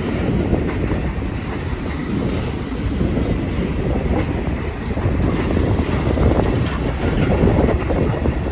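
Train cars rolling past close by: a loud, steady rumble of steel wheels on rail, with many short clicks and knocks running through it.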